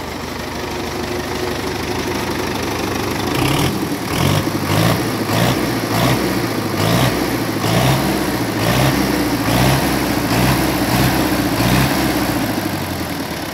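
Belarus MTZ tractor's diesel engine running at idle, with a regular low pulsing about twice a second from a few seconds in. The engine has had a full overhaul.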